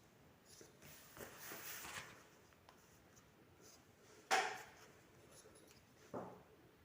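Quiet handling of an EVA foam sheet and a measuring tool on a tabletop while measuring: a soft sliding rub, then a sharp tap about four seconds in and a lighter tap near the end.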